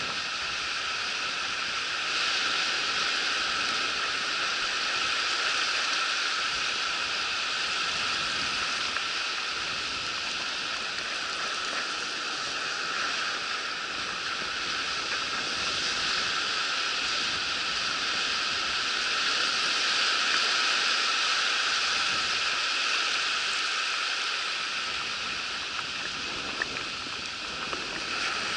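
Shallow surf washing up and back over a sandy beach: a steady rushing wash that swells and eases gently every several seconds.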